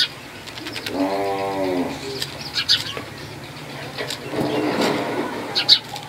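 Sparrows and other birds calling: short, sharp high chirps scattered throughout, and twice a lower, drawn-out call, about a second in and again after four seconds.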